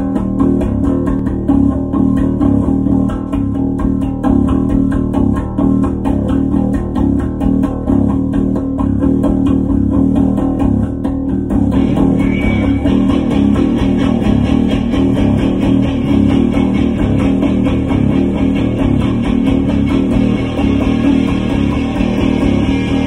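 Rock band playing an instrumental intro: electric guitar and bass guitar over drums, with no vocals. About halfway through the sound turns brighter and fuller.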